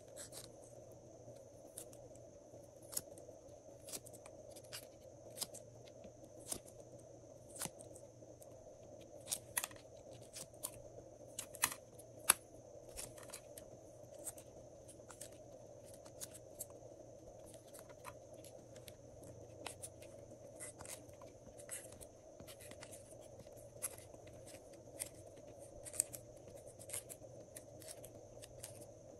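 Irregular small clicks and taps, one or two a second, as hexagonal clay pieces are pushed out of a flexible silicone mold and drop into a tray. The pieces land over a steady faint hiss.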